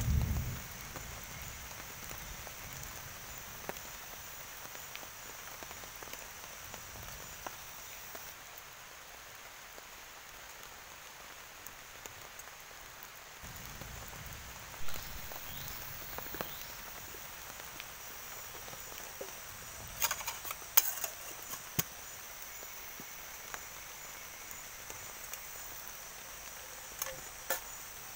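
Wet forest after a heavy downpour: a steady hiss of rain and running water under a high, even insect drone, with scattered drips and a few quick clusters of sharp clicks about two-thirds of the way in and near the end. A low rumble of thunder dies away in the first moment.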